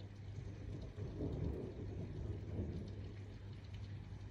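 Distant thunder rumbling, swelling about a second in and rolling away by about three seconds, over a steady low hum.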